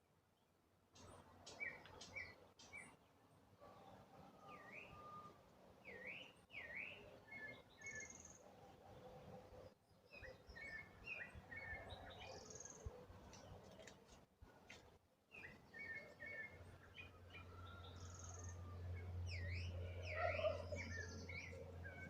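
Several wild birds chirping and calling faintly, with quick repeated chirps and short notes that sweep down and back up. A low steady hum joins in for the last few seconds.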